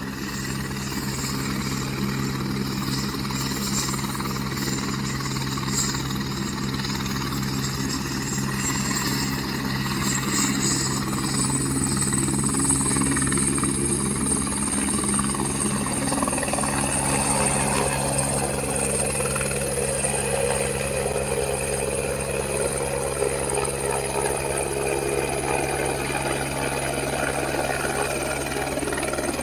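Helicopter's turbine engine and rotor running, the blades beating in a steady rapid chop under a high turbine whine. About ten seconds in the whine climbs in pitch and then holds as the engine powers up for takeoff.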